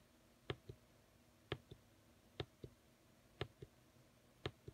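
Faint clicks of the buttons on a handheld digital oscilloscope being pressed one after another, about once a second, each a louder click followed by a softer one a moment later.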